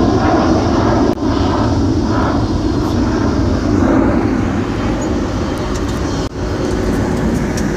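Jet engines of a large high-wing transport aircraft running as it moves along the runway: a loud, steady noise heavy in the low end.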